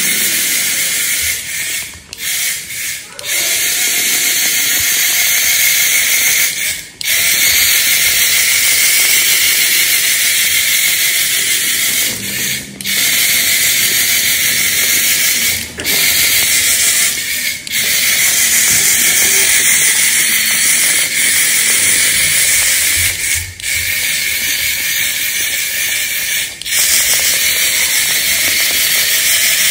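Small battery-powered electric motor and plastic gears of a remote-control ladybug toy whirring steadily with a hissing, ratcheting sound, cutting out briefly several times as it is steered.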